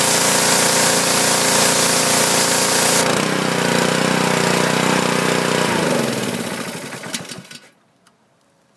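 Honda GCV160 single-cylinder engine running a pressure washer's pump, with the hiss of high-pressure water spraying from the wand. About three seconds in the spray stops and the engine keeps running on its own, then near the end the engine winds down to a stop, its pitch falling into silence.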